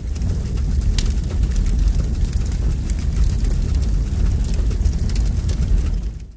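Fire sound effect: a low rushing noise of burning flames with scattered crackles, fading out quickly at the very end.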